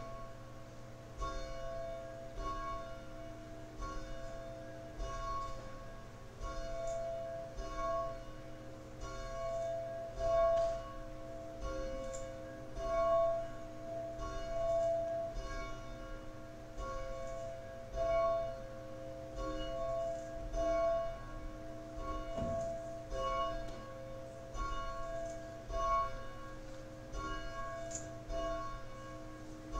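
Church bells ringing: several bells of different pitch struck one after another in a steady, repeating pattern, starting about a second in.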